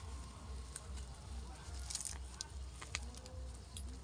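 A cabbage being picked by hand from a garden bed: its leaves rustle, with a few short sharp clicks and cracks, and a sharper one about three seconds in. A low steady rumble runs underneath.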